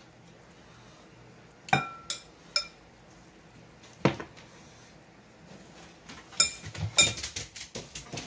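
A utensil clinking and scraping against a glass mixing bowl while shredded chicken is scooped out: a few separate sharp clinks, some with a short ring, then a quicker run of clinks and knocks near the end.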